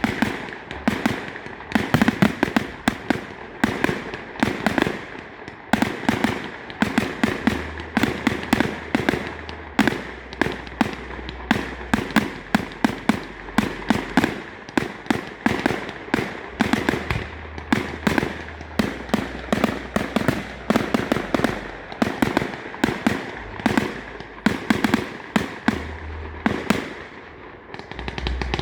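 Fireworks display: a near-continuous barrage of bangs and crackling, several reports a second, easing briefly near the end.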